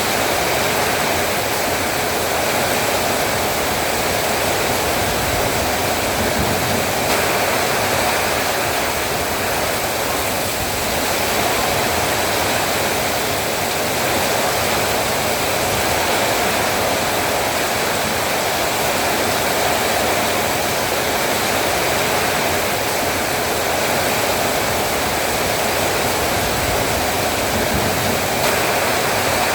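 Heavy rain falling steadily, a dense even hiss of water with no letup.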